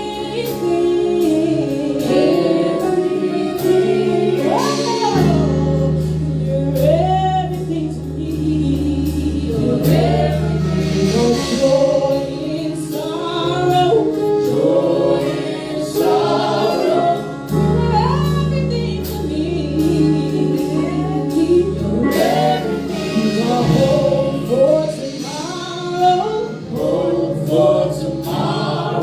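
Gospel choir and worship team singing over sustained keyboard chords and bass, the melody rising and falling.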